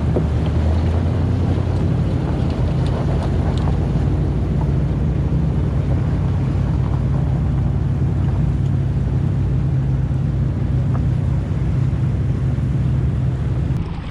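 Steady wind buffeting the microphone aboard a small sailing catamaran under way, with a deep rumble and the wash of water around the hulls.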